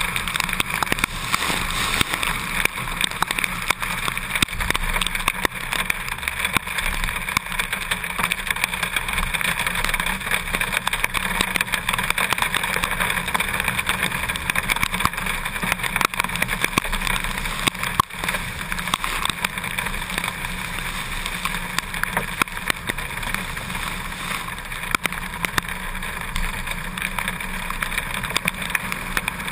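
A vehicle driving through standing water on a rain-soaked road: a steady rush of tyre spray and water, with many small ticks of spray striking the camera.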